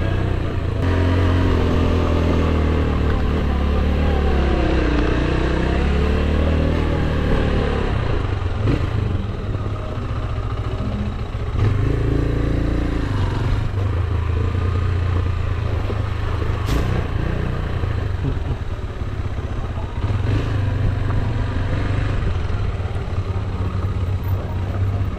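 AKT TT DS 200 dual-sport motorcycle's single-cylinder engine running under way, its revs rising and falling with the throttle.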